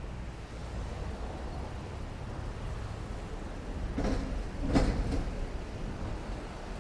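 Steady low rumble with a short cluster of clunks and rattles about four to five seconds in, the loudest near the middle of the cluster: the knock of something passing over the rails of a railway level crossing.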